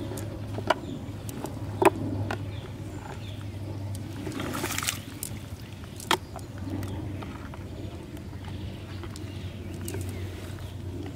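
A cast net being handled as fish are freed from its mesh into a plastic basin: a few sharp clicks, and a brief rustle about four and a half seconds in, over a steady low hum.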